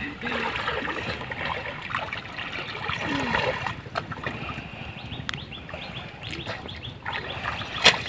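Water sloshing and trickling around people wading chest-deep through a lily pond, with a sharp click just before the end.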